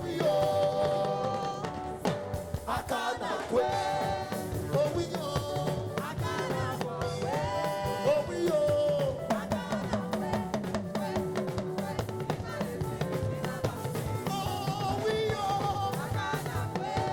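Live gospel band music with a steady drum beat and keyboard or horn lines, with sung or held vocal lines now and then.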